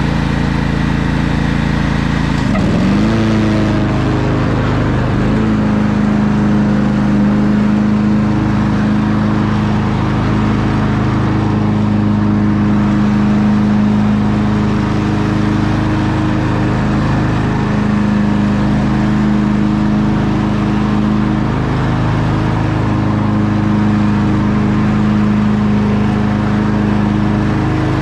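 Craftsman riding mower's engine running at working speed while mowing grass with the deck engaged. Its pitch dips sharply and recovers about two and a half seconds in, then holds steady with small sags under load.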